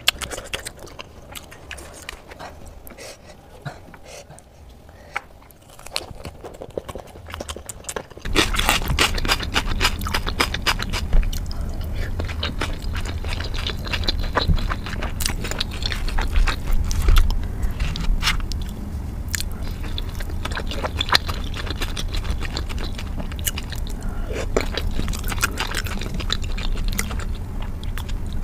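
Close-miked chewing and mouth sounds of momo dumplings being eaten, with many short clicks and smacks. About eight seconds in, the sound jumps markedly louder and denser.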